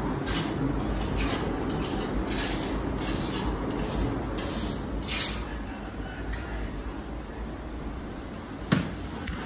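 Paint spray gun hissing in short repeated bursts, roughly one a second, over a steady low hum, with a single sharp knock near the end.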